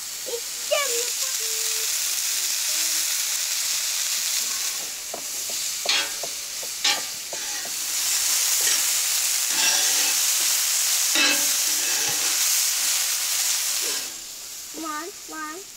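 Bell pepper rings sizzling steadily on a hot flat iron griddle over coals, with a few sharp clicks of metal tongs against the griddle as the peppers are turned. The sizzle drops away about fourteen seconds in.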